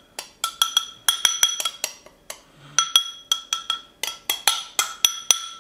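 Metal spoon clinking repeatedly against a small glass bowl while the paste is scraped out, several irregular taps a second, each ringing briefly with a glassy tone.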